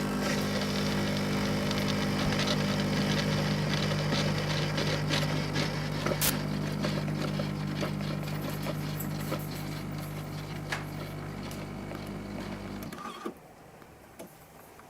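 Jura Impressa XS9 bean-to-cup coffee machine running, a steady motor hum with a crackly rattle over it that stops abruptly near the end.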